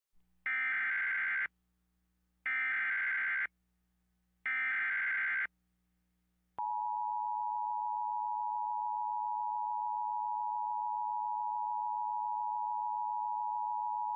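Emergency Alert System tones: three roughly one-second bursts of SAME digital header data, then about six and a half seconds in the steady two-tone EAS attention signal (853 and 960 Hz sounded together), announcing a National Weather Service severe thunderstorm warning.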